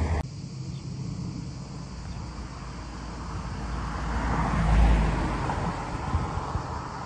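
Firefighting aircraft flying overhead: a distant engine drone with a low rumble that swells to a peak about five seconds in and then fades as they pass.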